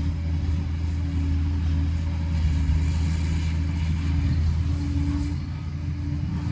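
Liebherr 746 crawler dozer's diesel engine running steadily with a deep, even drone.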